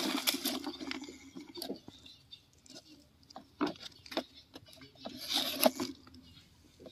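Plastic toy truck wheels rolling and crunching over dry dirt for about the first second, then scattered clicks, taps and scrapes of handling on gritty ground.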